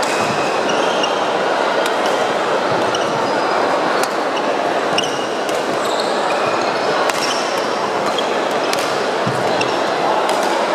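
Badminton doubles rally in a large sports hall: sharp clicks of rackets hitting the shuttlecock and short squeaks of court shoes on the wooden floor, over a steady din of the hall with other courts in play.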